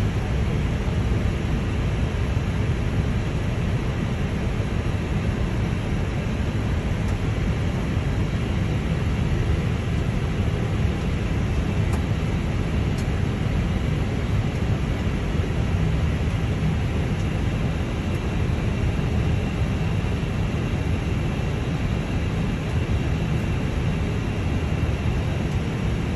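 Steady low rumble and hiss inside an Airbus A320 cockpit as the airliner taxis on the apron.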